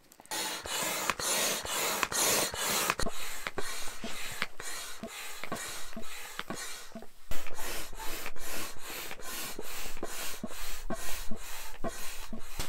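Hand air pump inflating the air beams of a Crua insulated inner tent: a steady run of rhythmic pump strokes, each a rush of air, about three a second, with a brief pause about seven seconds in.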